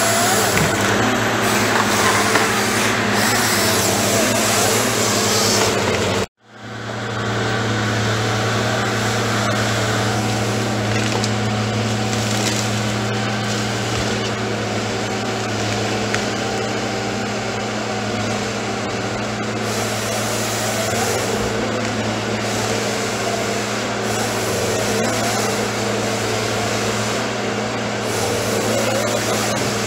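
Fabtek 133 harvester's diesel engine running steadily with a low hum, while its 2-roller processing head feeds and saws pine stems. The sound cuts out for a moment about six seconds in, then carries on unchanged.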